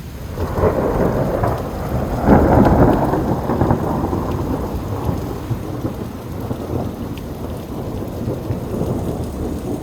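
Thunderstorm: heavy rain with thunder rumbling, swelling loudest about two seconds in and then rolling on.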